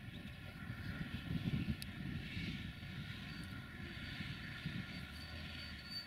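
Cars driving past close by, a low engine and tyre rumble that swells to its loudest about a second and a half in, then eases.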